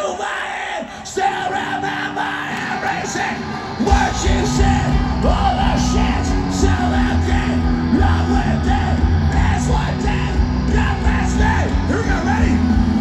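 A big crowd yelling, then about four seconds in a live rock band comes in loud with heavy drums, bass and distorted guitars, the crowd still yelling over it.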